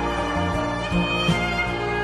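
Instrumental background music: held notes over a steady low bass line.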